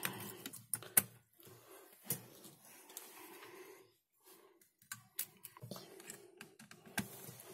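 Light clicks and taps of a laptop's copper heat-pipe cooler being handled and seated onto the motherboard, the sharpest about a second in.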